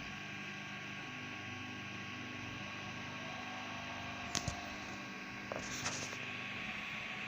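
Tronxy X5S 3D printer printing: stepper motors sing in low tones that change pitch every moment or so, over the steady hiss of its cooling fans. Two sharp clicks come about four and a half seconds in, and a short hissy rattle follows about a second later.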